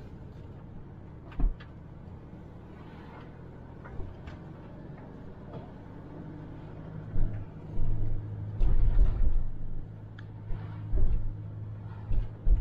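Car running and driving, heard from inside the cabin: a steady low engine and road rumble whose hum grows stronger about seven seconds in. A single low thud comes in the first few seconds, and a run of heavy low thumps follows in the second half.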